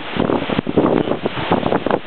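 Strong, gusty wind buffeting the microphone in irregular blasts: hurricane-edge winds of about 30–35 mph.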